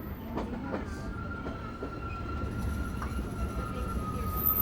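Ride on the Disneyland Railroad's narrow-gauge steam train: a steady low rumble of the cars rolling on the rails with a few clacks early, and from about a second in a thin, steady high squeal of wheels, dipping slightly in pitch near the end.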